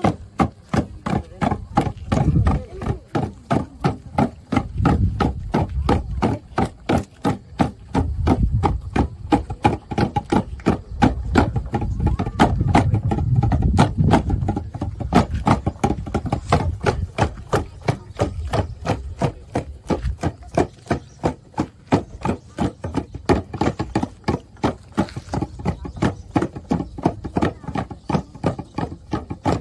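Papuan tifa hand drums beaten in a fast, steady rhythm, about four beats a second, with the dancers' voices chanting over them.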